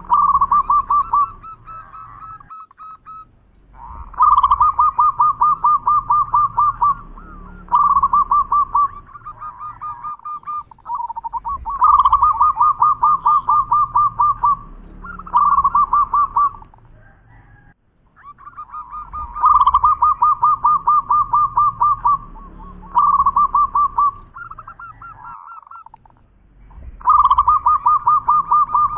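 Zebra dove (perkutut) singing: bouts of quick repeated coo notes, each bout lasting one to three seconds, with short pauses between them.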